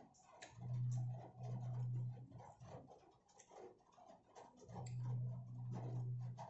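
Plastic fork and knife clicking and scraping as fried chicken is pulled apart in a cardboard takeout box. A low steady hum comes twice, each lasting about a second and a half, and is the loudest sound.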